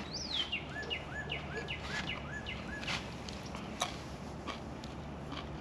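Birds calling: falling whistled notes and a quick run of about six short repeated chirps in the first two seconds, over a faint steady low hum, with a couple of sharp clicks later on.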